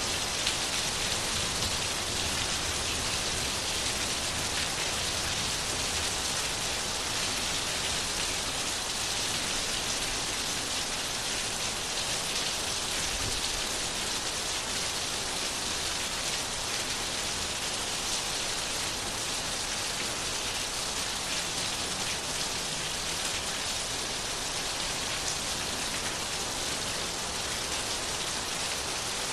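Steady rain falling, an even hiss of rain on a surface that holds constant throughout.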